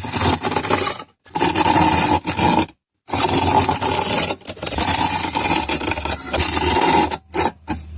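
Crunchy kinetic sand being cut and scraped, in three long strokes with short pauses between, then two brief scrapes near the end.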